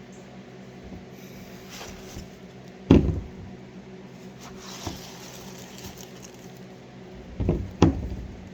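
Objects being handled and set down: one loud knock about three seconds in and a pair of softer knocks near the end, over a steady low hum.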